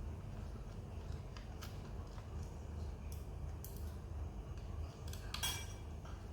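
Light clicks and metallic clinks of small laptop parts being handled while the old hard drive is swapped out for an SSD, with a louder clatter about five and a half seconds in, over a low steady hum.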